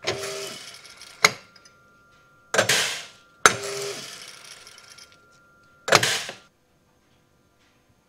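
FOSS Infratec grain analyser running a wheat sample to measure its moisture. Its mechanism works in about five short bursts of whirring and clicking, with two sharp clicks.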